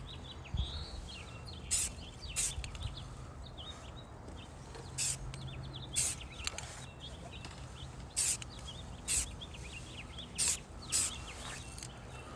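Small birds chirping and tweeting throughout, over about eight short hissing bursts that come in pairs.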